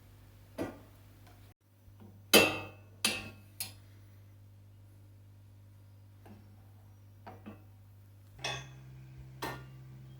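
Sharp metal clinks and knocks, a handful spaced a second or so apart with the loudest about two seconds in: the welded steel feeder being fitted onto its bracket.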